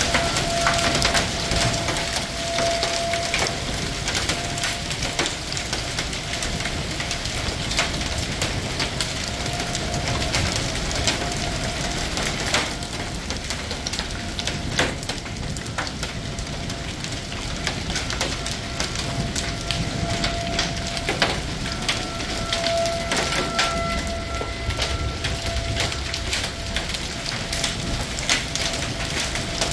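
Hail falling with heavy rain: a dense steady hiss of rain with many sharp ticks of small hailstones striking.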